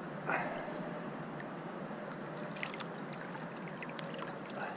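River water running steadily, with a few small splashes and a brief short sound near the start.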